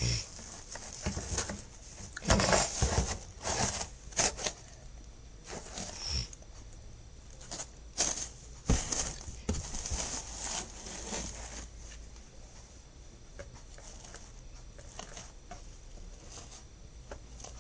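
Hands working at close range: irregular rustling, rubbing and light taps, busiest in the first half and quieter toward the end.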